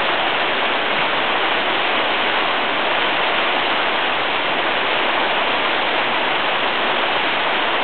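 Steady rushing of fast-flowing water, an even hiss with nothing standing out.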